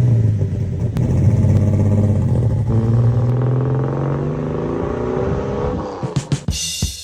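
Six-cylinder car engine, a 4-litre six, pulling away and accelerating, its pitch climbing steadily for about three seconds before it fades out. Drum hits of music come in near the end.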